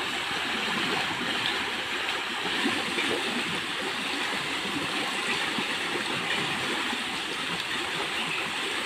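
Heavy rain falling steadily, a continuous even hiss of water.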